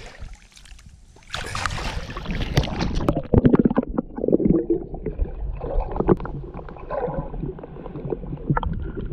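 Water splashing and sloshing in irregular bursts, beginning about a second and a half in.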